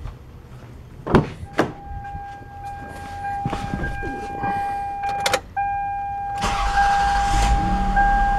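A car door clicks open and a steady warning chime sounds. About six seconds in, the 2001 Toyota Highlander's 3.0-litre V6 cranks, catches and settles into a steady idle: its first start after the knock sensors were replaced.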